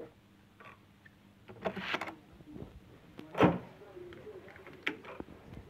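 Hotel room door with a key-card lock being opened: a brief rustle of handling, then one loud clunk about three and a half seconds in and a sharp click near the end.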